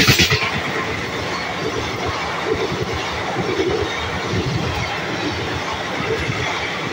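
Coaches of an intercity express passenger train rushing past close by at speed, the wheels clattering over the track in a steady rumble. There is a brief, louder rush of noise at the very start.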